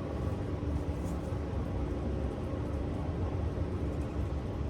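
Steady low rumble of distant city traffic, with a faint steady hum over it.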